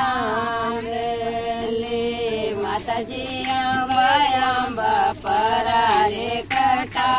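Women's voices singing a Mataji bhajan, a devotional folk song to the goddess, together and unaccompanied. A long held note opens, then shorter phrases that bend in pitch.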